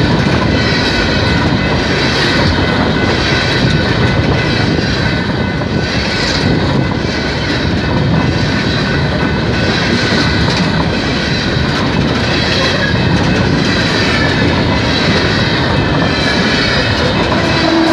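Freight train of open-top hopper cars rolling past close by, a loud steady rumble of wheels on rail with a high-pitched squeal held over it.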